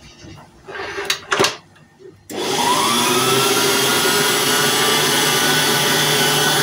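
A couple of knocks against the bowl, then about two seconds in an electric stand mixer switches on: its motor whines up to speed and runs steadily, mixing bread dough.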